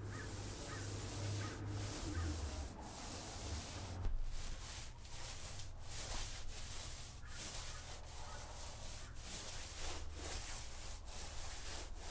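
Paint roller rolling primer onto a wood-panelled camper wall: a soft rasping rub in repeated strokes, about one a second, over a steady low hum.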